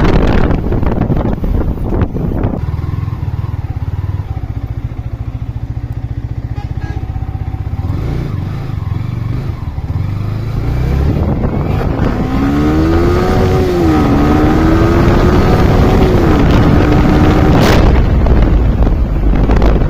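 Yamaha R15 V3 motorcycle's single-cylinder engine on its stock exhaust, running on the move with wind on the microphone. It is loudest at the start, eases off after a couple of seconds, and builds again in the second half.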